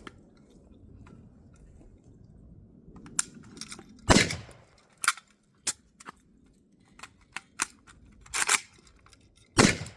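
AK63F rifle (7.62×39 mm) fired once about four seconds in. Clicks and clacks of a magazine change and the rifle being worked follow, then two more shots about a second apart near the end.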